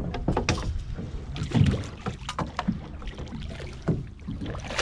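Water splashing beside a small boat as a hooked mangrove snapper thrashes at the surface and is scooped up in a landing net, with a run of short, sharp splashes and knocks over a steady wash of water.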